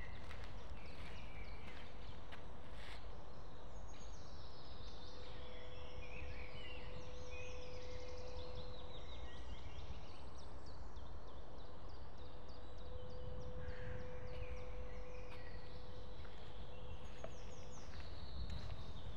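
Several songbirds singing in woodland, chirps and trills throughout, over a steady low rumble. A faint steady hum comes in twice, several seconds each time.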